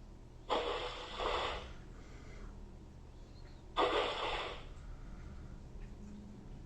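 Code 'N Learn Kinderbot toy robot's speaker playing short breathy, hissing sound effects from its sound test mode: two bursts of about a second each, the first about half a second in, the second near four seconds in.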